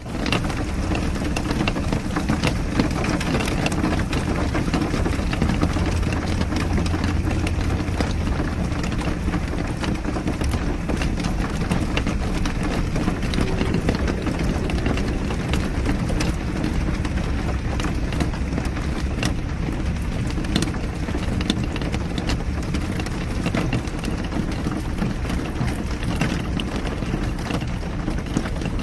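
A car driving in the rain: a steady low rumble of engine and road under a hiss of rain, with scattered sharp ticks of drops throughout.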